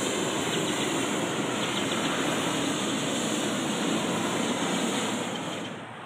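Hot air balloon's propane burner firing in one long steady blast as the balloon climbs after lift-off, dying away near the end.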